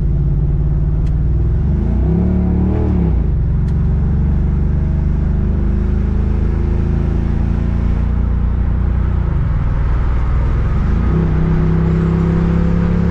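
Chevrolet Impala engine and exhaust under hard acceleration through factory mufflers. The revs rise and fall back about two seconds in, hold steady, then climb again near the end and hold higher. The owner finds it too quiet, not rumbling enough.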